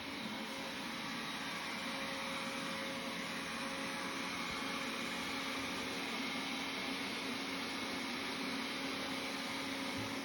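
Robot vacuum cleaner running steadily: an even whirring motor-and-brush noise with a constant low hum.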